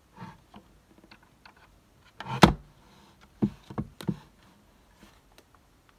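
Hands working on a tabletop: scattered light taps and clicks, one loud knock about two and a half seconds in, then three more knocks in quick succession a second later.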